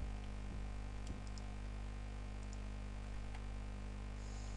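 A few faint, scattered clicks of a computer keyboard and mouse, over a steady low electrical hum.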